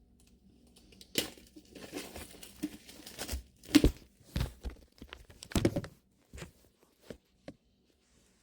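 Book packaging being torn and crinkled open by hand: a run of irregular tearing and rustling, loudest about four and five and a half seconds in, trailing off into a few light ticks.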